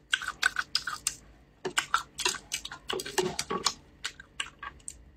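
Chopsticks and a plastic ladle-spoon clicking and tapping against each other and the pot as soup and noodles are scooped: a run of quick, irregular light clicks.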